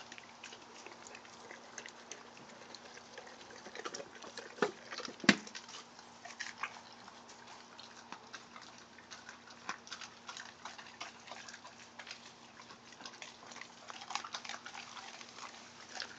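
Great Dane puppy chewing raw chicken backs, the bones crunching and cracking between its teeth in irregular crunches, with one much louder sharp crack or knock about five seconds in.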